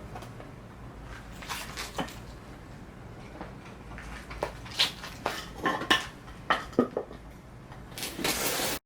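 Metal engine parts and tools clinking and knocking as they are handled and set down during a motorcycle engine teardown, with a few sharp ringing clinks in a cluster past the middle. A short hissing rustle near the end cuts off suddenly.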